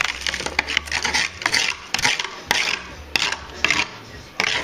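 A hand scraper chipping and scraping thick body filler (Bondo) off a metal car fender, in many quick, uneven rasping strokes.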